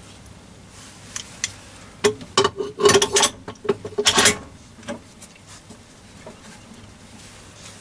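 Metal clinking and rattling as a steel spindle handle is fitted into a Myford lathe's spindle: a couple of light clicks, then a cluster of sharp clinks with a brief metallic ring about two seconds in, dying away after about four and a half seconds into a few faint ticks.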